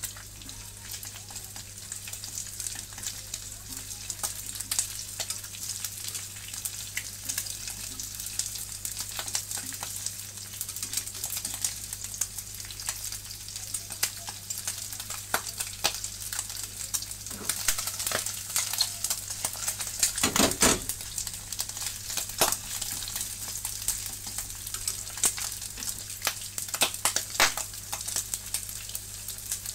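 Chicken skin sizzling and crackling as it fries and browns in a non-stick frying pan, with a steady hiss and many sharp spitting pops that grow busier and louder about two-thirds of the way through. The pieces are stirred around in the pan now and then.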